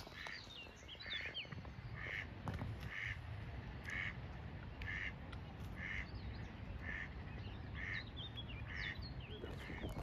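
A duck calling over and over in a steady series, about one call a second, with small birds chirping in the background.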